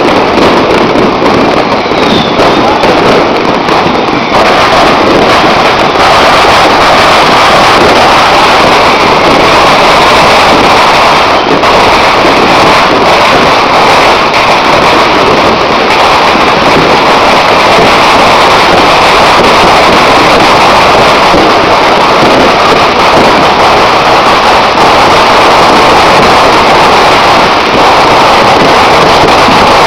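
Dense, unbroken barrage of fireworks and firecrackers going off together, very loud and continuous, so that single bangs merge into one steady crackling roar.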